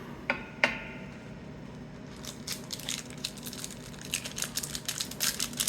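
Paper trading cards being handled and flipped through: two sharp clicks near the start, then a fast run of small taps and rustles from about two seconds in.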